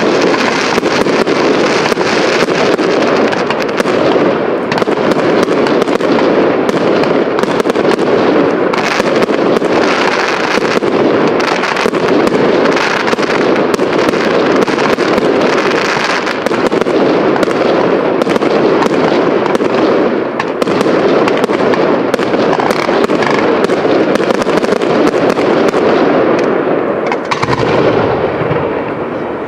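Professional aerial fireworks display: many shell bursts and sharp cracks crowded closely together with no let-up, dropping off a little near the end.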